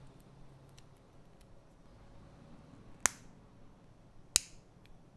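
Two sharp plastic clicks, about three seconds in and again just over a second later, as the pieces of a small Kinder Joy Natoons plastic toy figure snap into place, with faint handling ticks between.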